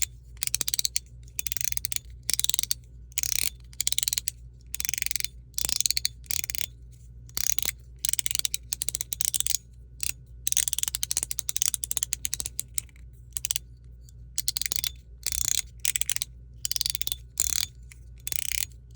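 Chenyu Guardian mechanical fidget slider in amber PEI plastic being worked back and forth. Each stroke gives a quick run of clicks and clacks, one to two strokes a second, with a longer run about ten seconds in.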